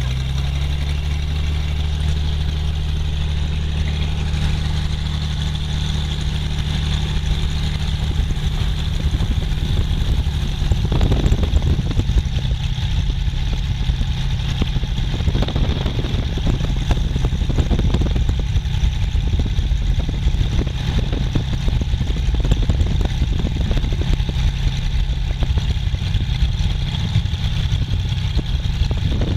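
Small high-wing propeller plane's piston engine heard from inside the cabin, running steadily at first, then louder and rougher from about ten seconds in as the plane rolls along the tarmac.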